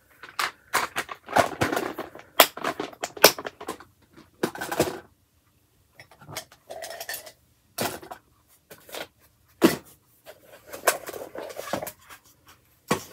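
Paper and small craft items handled on a desk: irregular rustling of paper with light taps and clatter, pausing briefly near the middle.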